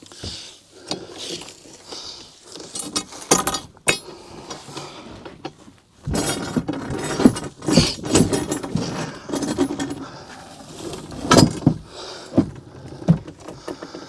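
ACIQ air handler's sheet-metal cabinet being shoved and shifted into position by hand: irregular metallic clunks, clinks and scraping, with a few sharp knocks. It grows busier about halfway through.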